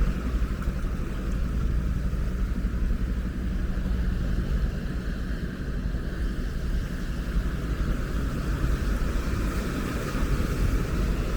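Ocean waves: a steady low rumble of surf with a hiss above it, swelling only slightly.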